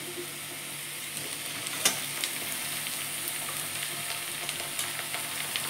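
Carrot and beetroot strips sizzling in hot oil in a kadhai: a steady frying hiss, with a light knock about two seconds in.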